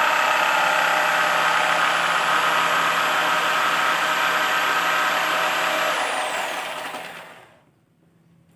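Handheld electric power tool running at a steady high whine, then switched off about six seconds in, its motor winding down and fading out over about a second and a half.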